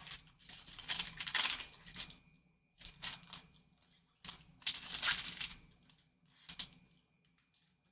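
Wrapper of a Panini Prizm baseball card pack being torn open and crinkled, in several short rustling bursts.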